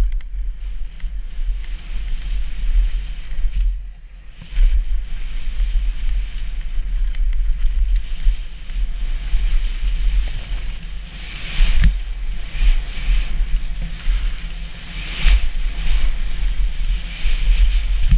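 Downhill mountain bike riding fast over a dirt trail: tyres on dirt and the bike rattling, under heavy wind buffeting on the microphone. There is a brief lull about four seconds in and two hard knocks at about twelve and fifteen seconds in.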